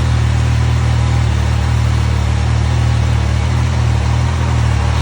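MV Agusta Rivale 800's three-cylinder engine idling steadily, running on its first start after the starter sprag clutch was replaced.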